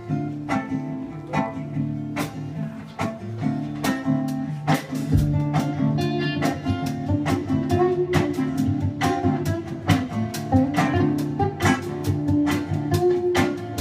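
Instrumental song intro on acoustic guitar: notes played in a steady rhythm, with no singing yet.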